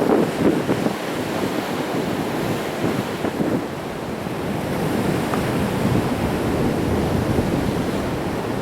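Sea waves breaking and washing against rocks, a steady rushing with a stronger surge right at the start, with wind buffeting the microphone.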